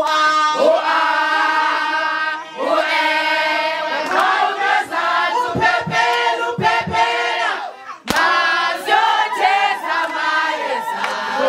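A crowd of women and men singing together in chorus, voices holding long notes, with one woman's voice loud and close among them. The singing breaks off briefly about eight seconds in and then carries on.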